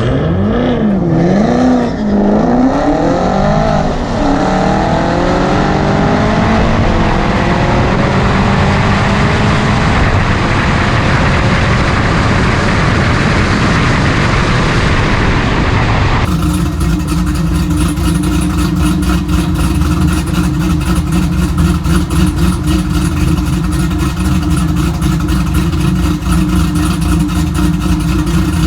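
Cammed LS1 V8 of a 2002 Camaro SS revving up and down repeatedly, then easing off. About two-thirds of the way through, an abrupt cut to the engine running steadily with an even pulse.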